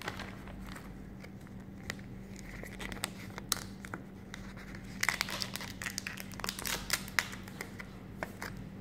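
Plastic packaging crinkling and rustling as a new phone and its box are handled, with a dense run of sharp crinkles and clicks from about five seconds in.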